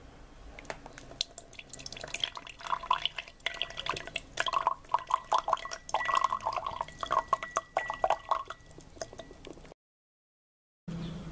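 Water pouring into a glass jar, gurgling and splashing with bright plinks against the glass. It stops abruptly near the end.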